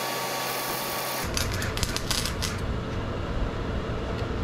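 Wire-feed welder tack welding steel: a few short bursts of crackling arc about one to two and a half seconds in.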